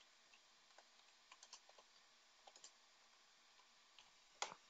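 Faint computer keyboard keystrokes typing a name, in short runs of clicks, with one louder click near the end.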